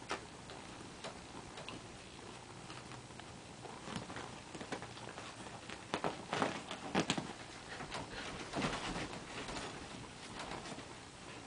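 Irregular rustling and scrabbling of paws on a quilted bedspread and pillows, with scattered short knocks, thickest around the middle.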